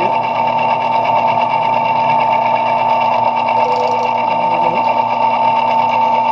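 Metal lathe running with a steady high whine while taking a light turning cut, with a brief hiss about four seconds in.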